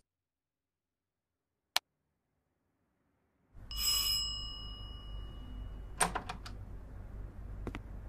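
Silence broken by one click, then about three and a half seconds in a single bell-like ding that rings on for about two seconds over a low hum, followed by a few sharp clicks.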